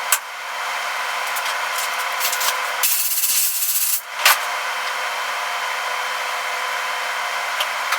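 A power tool grinding steadily on the truck cab's steel sheet metal, with a brief pause about four seconds in.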